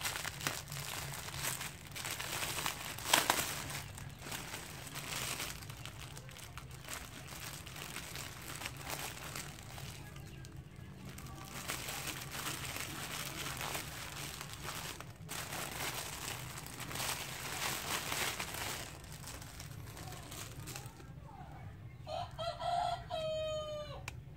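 Clear plastic wrap around a pack of black duckbill face masks crinkling and crackling as hands work it open, in irregular rustles with a sharper crackle about three seconds in. Near the end a long pitched call sounds once, falling in pitch as it ends.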